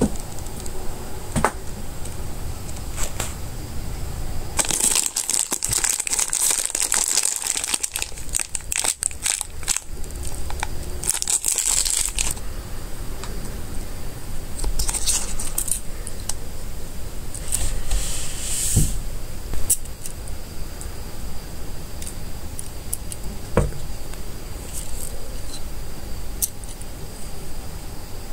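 Crinkling and tearing of toy packaging as a capsule toy is unwrapped by hand, a dense crackling run about five to twelve seconds in, then shorter rustles and small clicks of handling plastic parts.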